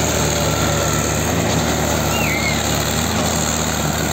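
Diesel tractor engines running steadily under heavy load as two tractors, one a Mahindra Arjun 555, pull against each other on a chain in a tug-of-war.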